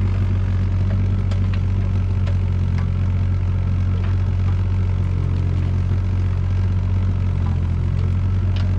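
Mini excavator engine running steadily, with a few faint clicks over it.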